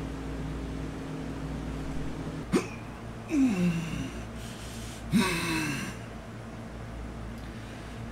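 A man gives two drawn-out 'aah' sounds, each falling in pitch, a couple of seconds apart. Before them a steady hum ends with a sharp click.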